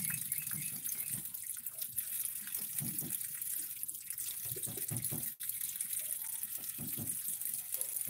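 Water running and splashing, with irregular light knocks and a sharp click about five seconds in.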